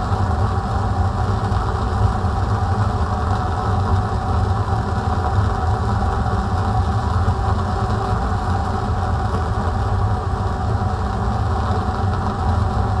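Steady low rumble of a fume cupboard's extraction fan running, together with the steady burn of a Bunsen burner's blue flame heating a test tube.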